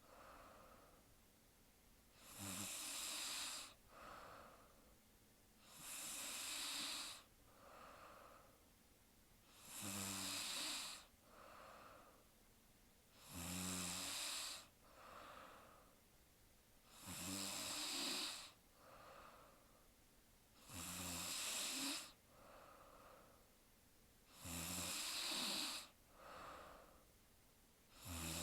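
A woman snoring in her sleep, with a loud snore about every three and a half seconds. Each snore opens with a low buzz and is followed by a softer breath.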